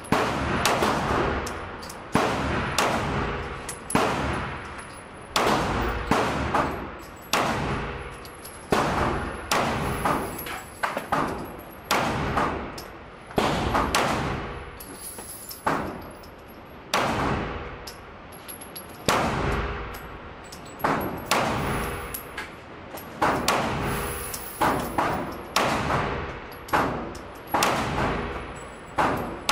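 Handgun shots fired in a steady string, about one a second, each sharp crack followed by a short echoing tail off the walls of an indoor shooting range.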